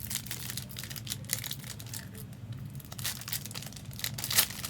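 Foil trading-card pack wrappers and cards being handled: irregular crinkling and rustling, with a sharper crackle near the end.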